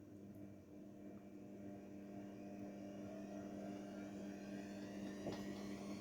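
Haier 7.5 kg washing machine's motor running with a steady hum and a faint whine that slowly rises in pitch and grows louder as the drum speeds up, typical of the machine ramping into a spin.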